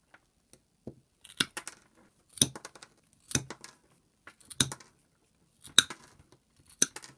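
Combination pliers' cutting edges snipping through PTFE-jacketed cable: about six sharp snips, roughly one a second.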